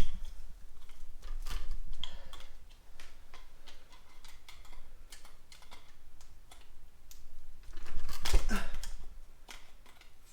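Irregular light clicks and clinks of hand tools and metal engine parts being handled during an engine teardown, with a louder clatter about eight seconds in.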